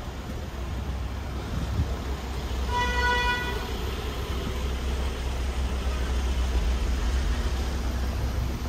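A single car horn toot, under a second long, about three seconds in, over steady city street traffic noise.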